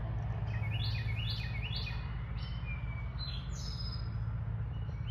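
A songbird singing a run of quick falling chirps, then a higher drawn-out note, over a steady low hum.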